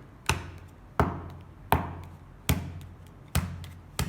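A thick stack of playing cards knocked down onto a table six times in a steady rhythm as it is cut and squared, each knock a sharp tap with a short decay.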